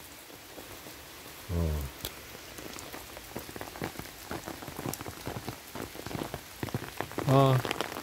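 Steady rain, with many small drops ticking on an open umbrella overhead, the ticks thickening from about two seconds in. A man's voice sounds briefly twice, the second time near the end.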